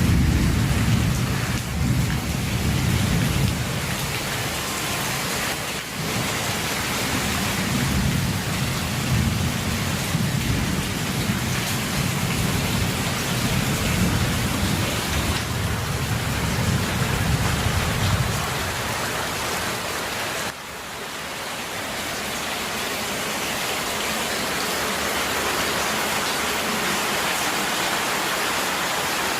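Heavy rain pouring steadily, with a long low rumble of thunder that fades out about two-thirds of the way through while the rain keeps on.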